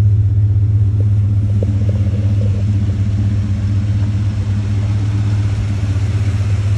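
1977 Chevrolet Caprice Classic's engine idling steadily, a low even drone.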